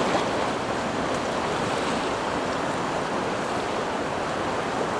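Steady rushing of the Klutina River's fast current, an even wash of water noise.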